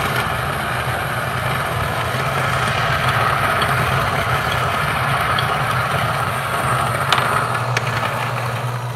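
Niche Zero conical burr grinder grinding a single dose of coffee beans: a steady motor whir with the grinding noise of the beans over it, thinning near the end as the last beans pass through. A couple of sharp clicks about seven seconds in.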